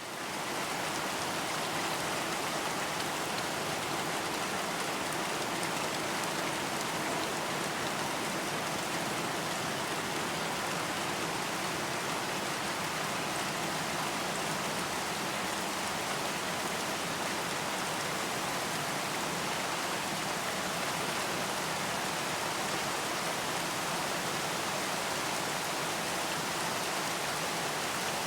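Steady rain falling, a dense even hiss of many drops, fading in at the very start and then holding constant.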